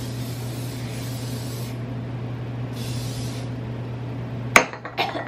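Aerosol hairspray hissing in two bursts: a longer spray, then after a pause a short one of under a second. A sharp knock and a few lighter clicks follow near the end.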